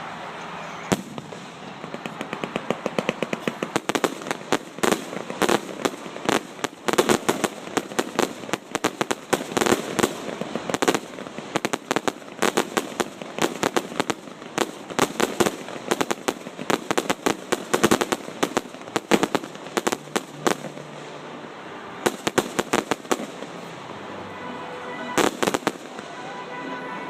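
Fireworks going off in rapid sharp cracks and pops, many a second, thinning out before a last cluster of bangs near the end.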